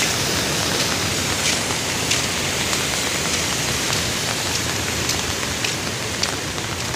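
Rain falling on an umbrella held just overhead: a steady hiss with separate drops ticking sharply on the fabric.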